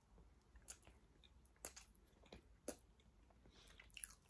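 Near silence with faint mouth sounds of people eating sponge cake from metal spoons: soft chewing and a handful of short, quiet clicks.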